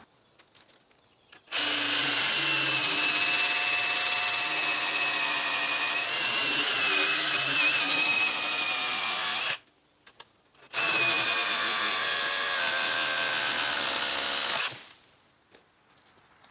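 Ryobi P517 18V brushless cordless reciprocating saw running in two long bursts, about eight seconds and then about four, with a short stop between.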